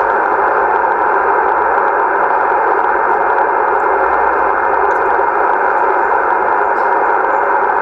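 Steady hiss of shortwave band noise from the Yaesu FTDX-1200 transceiver tuned to 14.270 MHz on the 20-metre band, an open channel between two stations' transmissions. The hiss is held within the narrow single-sideband voice passband.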